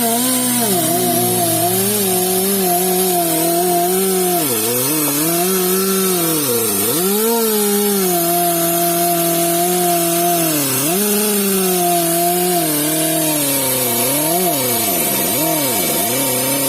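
Pneumatic air die grinder running at speed with a steady hiss of air, its whine sagging in pitch and recovering again and again as the burr is pressed into the rubber to buff the inside of a tubeless tyre around a puncture. The dips come about five seconds in, near seven seconds, near eleven seconds, and several in quick succession near the end.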